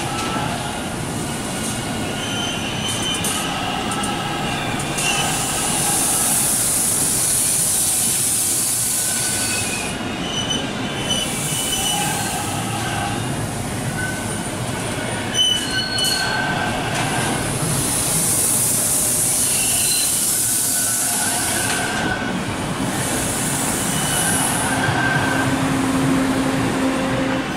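TTC T-1 subway train running over curved track and switches, its steel wheels squealing in shifting high tones that come and go, over the rumble of the cars on the rails. A single sharp clack comes about fifteen seconds in.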